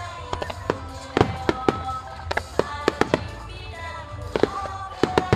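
Rapid barrage of fireworks launching and bursting, a string of sharp bangs several times a second, over music with sustained tones.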